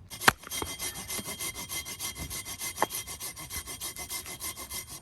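Hand saw cutting through a log with quick, even back-and-forth strokes, a few sharp knocks among them.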